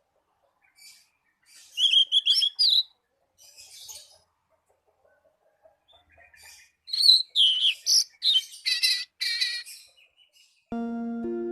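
A songbird singing two quick bursts of varied, high whistled notes, with faint short chirps between them. Near the end, steady background music comes in.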